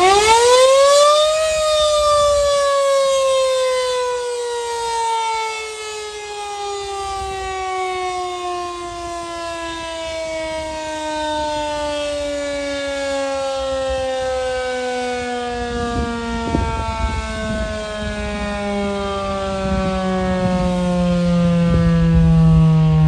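Federal Signal outdoor warning siren giving a short alert: it spins up fast to a high wail in about a second and a half, then winds down slowly, its pitch falling steadily. Some low rumbling joins near the end.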